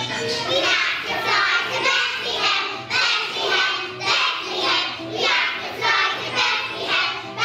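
A group of young children singing a song together in unison, in a steady, regular rhythm.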